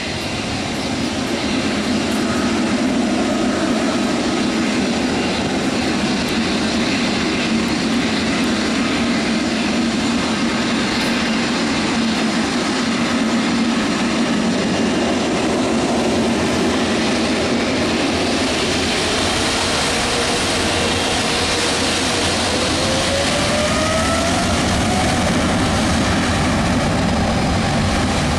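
Jet engines of a Boeing 777 freighter (GE90s) running steadily as the aircraft taxis onto the runway for departure. About two-thirds of the way in, a whine rises in pitch as the engines spool up for the take-off roll.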